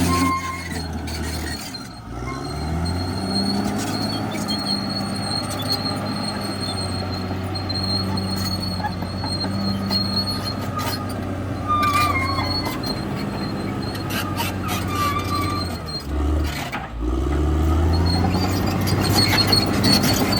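CAT D6R XL crawler bulldozer's diesel engine running under load, with the tracks squealing and clanking now and then. The engine note dips about two seconds in and again near the end, then climbs back up.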